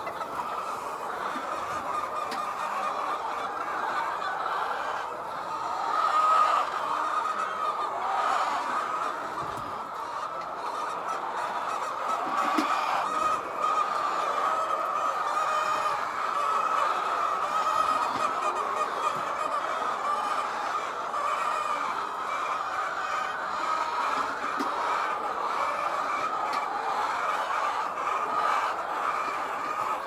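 A flock of white layer hens clucking and calling continuously, many birds at once.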